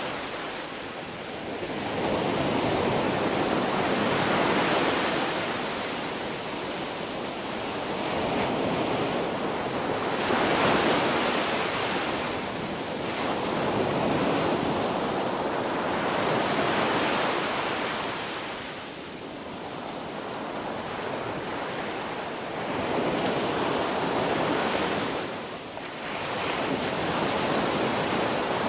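Ocean surf breaking on a beach: a continuous rushing wash that swells and ebbs every few seconds as waves come in and draw back.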